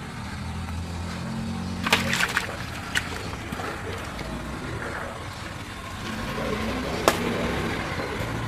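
A metal tool knocking sharply on the wet concrete floor: a quick cluster of knocks about two seconds in, then single knocks about three and seven seconds in, over a low steady hum.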